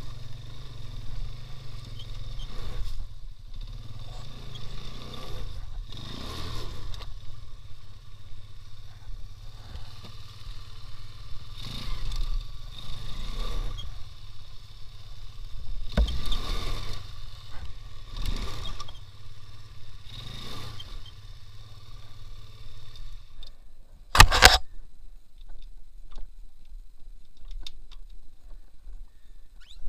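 Small engine of a two-wheel-drive motorcycle running steadily at idle, with short knocks and scrapes every couple of seconds. The engine stops about three-quarters of the way through, followed by one sharp clack.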